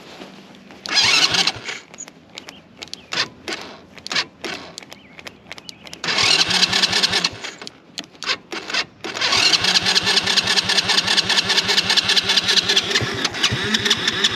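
Small single-cylinder four-stroke engine being started: it catches briefly about a second in, sputters and dies, catches again about six seconds in, then settles from about nine seconds in into steady running with a rapid beat. It is not getting the right RPM, which the rider puts down to too much air or too much fuel.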